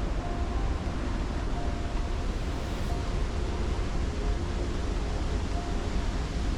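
Steady roar of Athirapally Falls, the large waterfall on the Chalakudy River, with a heavy low rumble and no break.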